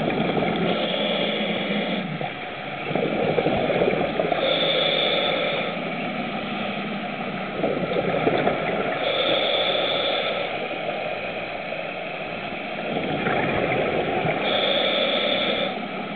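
Scuba diver breathing through a regulator underwater: a rush of exhaled bubbles followed by a hissing inhale, three times about five seconds apart.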